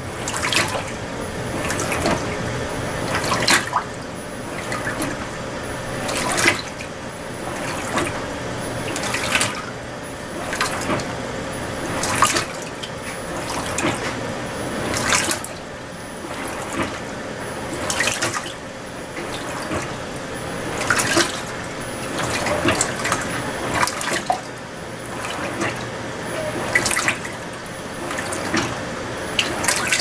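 Electrolux LTM16 Direct Drive top-load washing machine agitating its load in a rinse: water sloshing and splashing in rhythmic surges about every second and a half as the agitator swings back and forth, over a faint steady motor hum.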